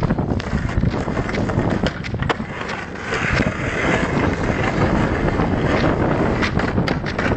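Skateboard wheels rolling over rough pavement, with a continual rumble and irregular clacks and knocks, and wind on the microphone.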